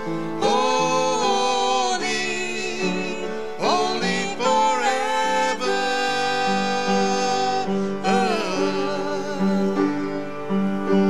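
A worship song sung by a solo voice with piano accompaniment: long held, gliding sung notes over steady sustained piano chords.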